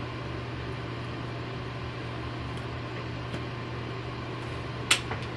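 Steady low hum with a light hiss, and one sharp click a little before the end.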